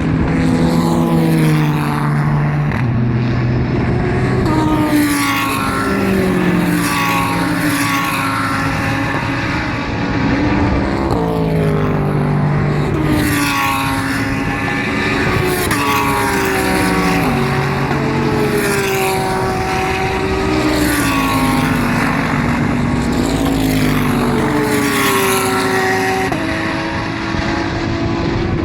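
GT race cars running on the circuit one after another, engines loud, their pitch gliding and changing in steps as they shift gears.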